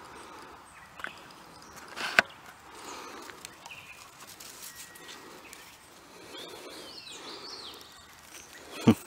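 Birds chirping and whistling in the background, over a light outdoor hiss. Two sharp knocks, one about two seconds in and one near the end, are the loudest sounds.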